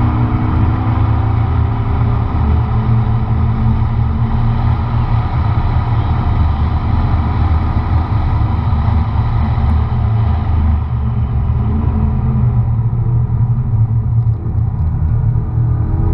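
McLaren MP4-12C's twin-turbo V8 running hard at speed on track, heard from inside the cabin over a heavy, steady low rumble. The engine's pitch shifts, and the higher part of its sound softens about eleven seconds in.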